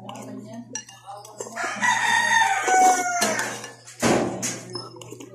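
A rooster crows once, a long call of nearly two seconds whose pitch drops slightly at the end. About four seconds in there is a loud sharp clatter of a spoon in a bowl, with softer eating noises around it.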